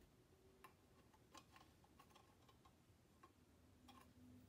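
Near silence with faint, scattered light ticks and taps, about one every half second: fingers handling a small butterfly ornament and fitting it against a wire-mesh inset.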